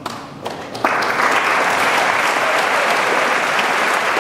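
Audience applause: a few scattered claps, then, just under a second in, the whole audience breaks into full, steady clapping.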